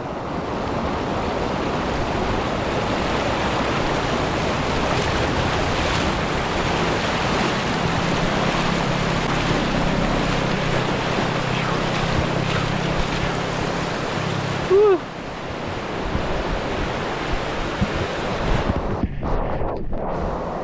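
Steady rushing noise of the creek's flowing water, mixed with wind on the microphone. About fifteen seconds in, a person gives a short whoop.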